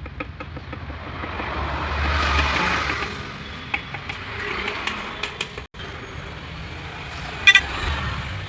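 Workshop background noise that swells and fades with a low rumble, a few light clicks, and a sharp ringing metal clink about seven and a half seconds in, the loudest sound.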